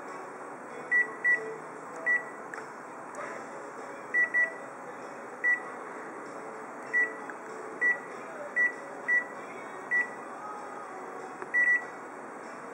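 A colour photocopier's touchscreen control panel beeping as its buttons are pressed: a dozen or so short, same-pitched key beeps at irregular intervals, some in quick pairs, over a steady background hum.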